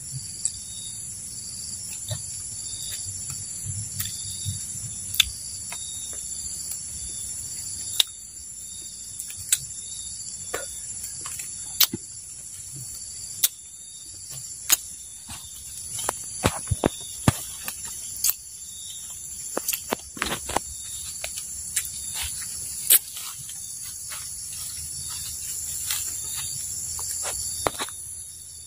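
Steady high-pitched insect chorus with a lower call pulsing over and over beneath it, and scattered sharp clicks and taps close by.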